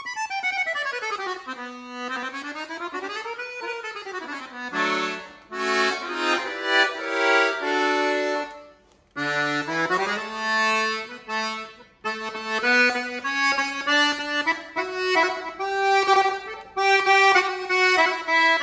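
Dino Baffetti diatonic button accordion in E, played solo. Quick runs sweep up and down the buttons, then a melody with chords follows, with a short break about nine seconds in.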